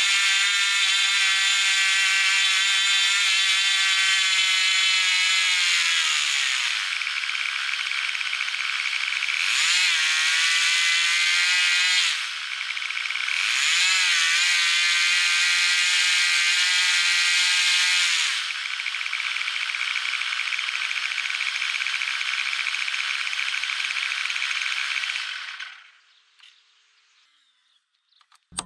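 O.S. 25FX two-stroke glow (nitro) engine turning a 9x6 propeller, running at high revs, its pitch sagging and climbing back a few times as the throttle is eased and reopened. Near the end the engine stops.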